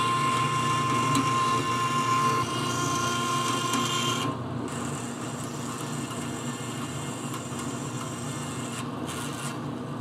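A tool working an aluminum bracket: a continuous scraping with a steady high ringing tone over it for about the first four seconds, then a quieter, even rasp.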